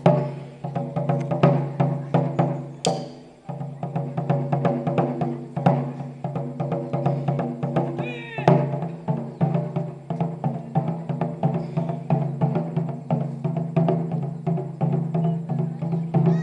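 Japanese taiko drums beaten in a quick, steady rhythm, with sustained pitched tones held under the strikes. A short sliding high sound cuts through a little after eight seconds in.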